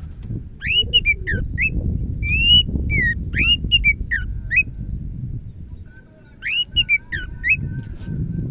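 Cucak ijo (leafbird) singing: two bursts of loud whistled notes sliding up and down, the second shorter, over a steady low rumble.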